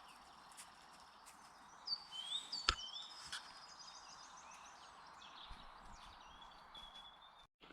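Wild songbirds singing: clear whistled phrases that swoop up and down, and a quick trill in the middle, over a faint steady hiss of outdoor ambience. A single sharp click sounds nearly three seconds in.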